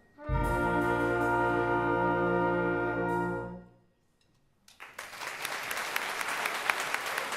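Youth wind band of brass and saxophones playing the closing chord of a hymn: after a brief break it holds one chord for about three seconds, then releases it together. About a second later, applause starts and carries on.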